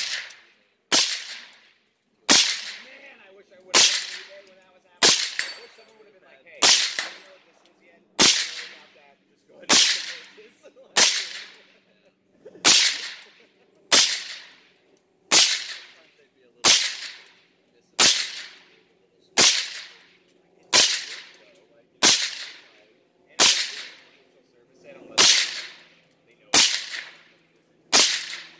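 Suppressed Tommybuilt TG36K rifle, a 5.56 mm G36K clone, fired in slow, steady semi-automatic single shots, about twenty in all, roughly one every second and a half. Each shot is a sharp report with a short fading tail.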